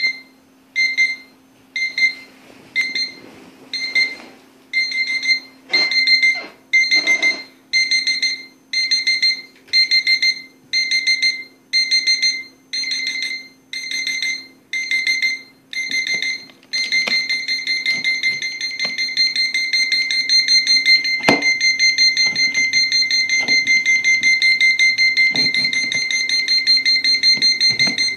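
Twist-equation puzzle alarm clock beeping, a high electronic tone sounding in bursts about once a second. About two-thirds of the way through it switches to continuous rapid beeping. A few sharp clicks and knocks come in the later part.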